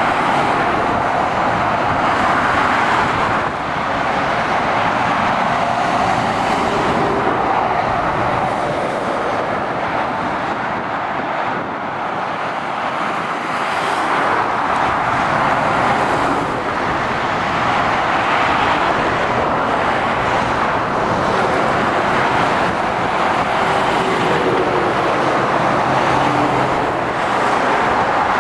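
Steady road traffic noise of lorries and cars driving along a dual carriageway, with small dips in loudness a few seconds in and near the middle.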